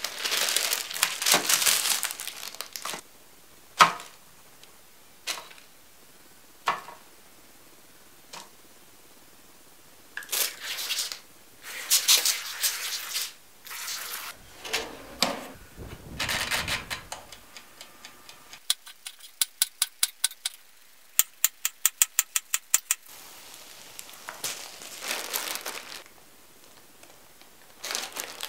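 Close-up handling noises: bursts of crinkling and rustling, scattered single knocks and clicks, and two runs of quick, evenly spaced clicking, each lasting about two seconds, a little after the middle.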